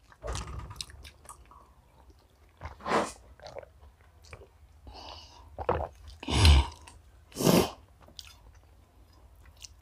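Close-miked chewing and mouth sounds of people eating chicken biryani with their fingers, with several short, louder mouth noises in between, the loudest about six and a half seconds in.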